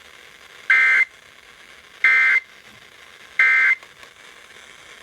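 Emergency Alert System end-of-message data tones: three short, identical bursts of high digital SAME code about a second apart, signalling the end of the alert broadcast.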